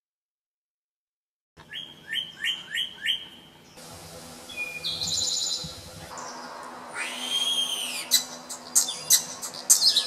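After about a second and a half of silence, birds singing: an eastern towhee's whistled song with a trill, then a European starling's song of whistles, sharp clicks and rattles near the end.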